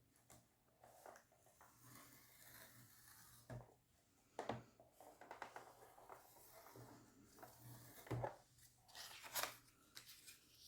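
Faint scraping strokes of a scoring tool drawn along white card, repeated several times, with a few light knocks as the card and tool are handled.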